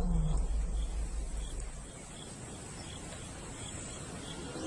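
The end of a male lion's roar: a low falling grunt at the start, then a quiet stretch of insects chirping with faint, regular high chirps, and the next grunt of the roaring bout starts right at the end.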